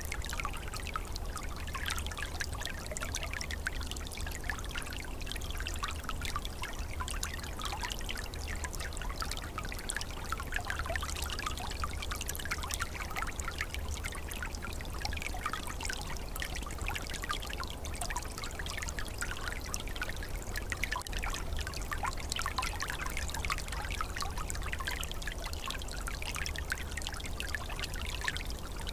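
Small forest stream flowing over stones in winter, a steady trickling and gurgling of water.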